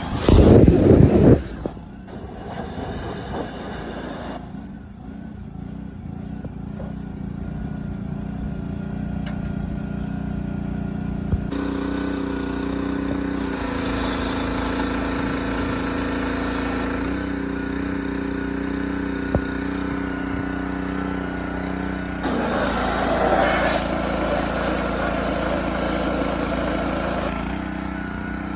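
A motor running steadily, with a loud burst in the first second or so. Its sound shifts abruptly several times.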